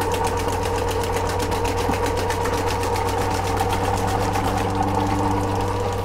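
Home-built 12-volt Adams pulse motor running at full speed, driving a small boat pressure pump through a reduction gear: a steady hum with a fast, even ticking. The pump is working against pressure, and the rig is running smoothly.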